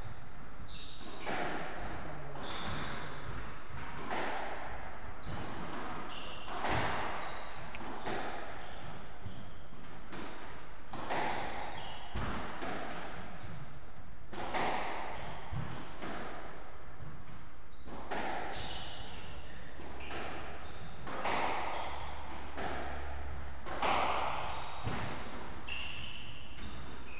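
Squash rally: the ball struck by rackets and smacking off the court walls about once every second and a half, each hit echoing in the enclosed court, with short high squeaks between hits.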